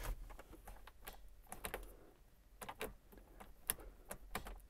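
A string of faint, irregular light clicks from the push buttons of an aftermarket switch panel being pressed repeatedly. The two-step's switch is touchy and is not latching reliably.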